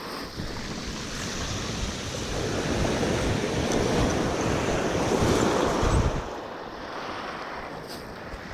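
Waves breaking and washing up a shingle beach, building over the first few seconds and easing off after about six seconds, with wind on the microphone.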